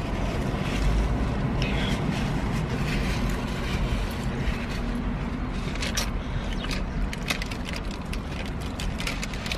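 Paper fast-food wrapper crinkling and rustling in the hands, in short crackles, with chewing, over a steady low hum in a car cabin.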